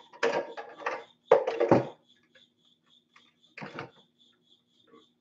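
Short bouts of clattering and rustling as an RC monster truck's plastic body and its light wiring are handled, the loudest about a second and a half in. A cricket chirps faintly and steadily about four times a second.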